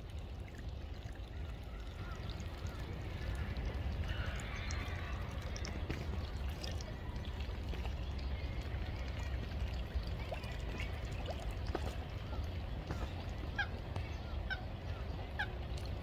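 Steady low rumble with faint short bird calls scattered over it, a small cluster about four seconds in and several more brief calls near the end.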